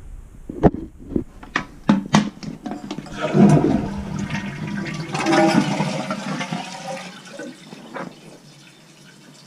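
Toilet flushing: a rush of water starts about three seconds in and dies away after about four seconds, after a few sharp knocks and clicks.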